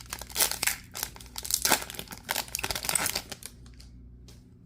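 Foil trading-card pack wrapper crinkling and tearing, with dense crackling that stops about three and a half seconds in.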